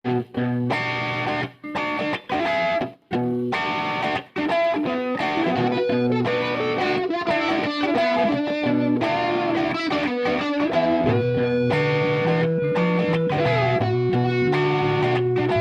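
Background music led by a distorted electric guitar: chords broken by several sudden short stops in the first few seconds, then a steady run of held notes.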